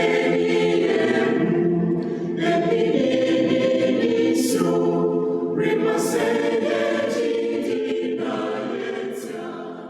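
Church choir singing a hymn in unaccompanied harmony, fading out near the end.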